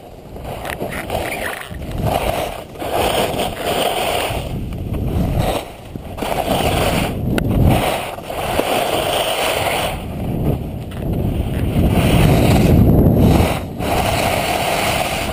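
Wind rushing over the camera microphone while skiing downhill, with skis scraping and hissing on packed snow. The noise swells and dips every second or two as the skier turns.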